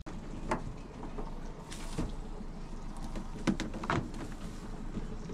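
A few scattered knocks and clunks of a boat and its gear being handled on the launch ramp, over a steady low outdoor rumble.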